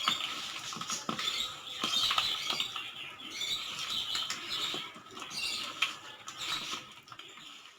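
Raw peanuts in a damp gram-flour and spice paste being mixed by hand in a bowl: an irregular sticky rustling with small clicks of the nuts, fading near the end.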